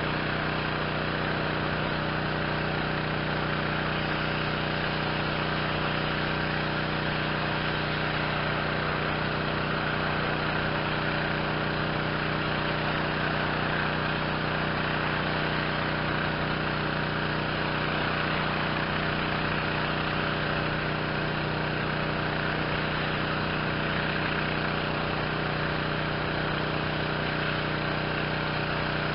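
Yamaha PW4040 gas pressure washer running steadily, its 357 cc Yamaha MZ360 engine humming under load beneath the hiss of the high-pressure water spray.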